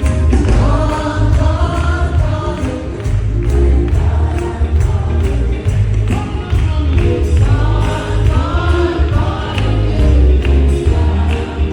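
Live gospel worship music: singers in chorus over a band with heavy bass and steady percussion.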